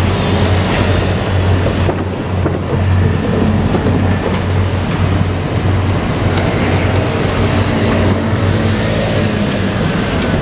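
JR Kyushu KiHa 200 diesel railcar running, a steady low engine drone with the rumble of the train.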